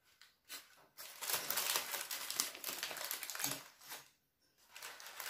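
Parchment paper and aluminium foil crinkling as a baked fish parcel is opened and the paper is peeled back. It comes in two spells, from about a second in and again near the end.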